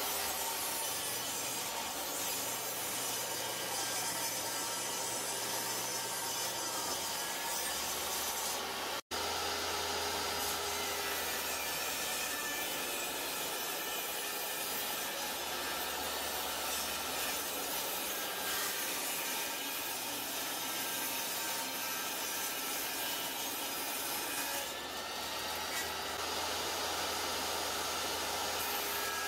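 Jobsite table saw running and cutting wood, trimming the pine edge strips off an end-grain wenge cutting board. A steady, even noise, broken by a brief dropout about nine seconds in.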